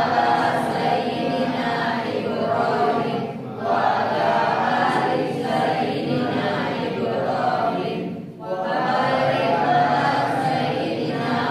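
Many voices reciting together in unison in a chanting rhythm, with two short pauses for breath, about a third of the way in and again past two thirds.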